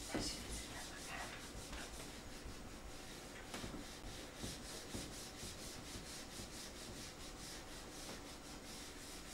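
Faint run of rubbing strokes from an eraser wiping marker off a whiteboard.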